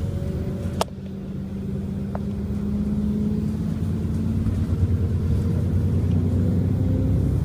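A vehicle's engine running with a steady low drone heard from on board, rising slightly in pitch and loudness as it picks up speed. There is one sharp click about a second in.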